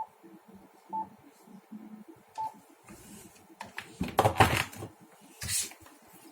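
Three short beeps from a transceiver's keys as its drive power is turned down, spaced about a second apart. A louder brief clatter follows about four seconds in, then a short hiss.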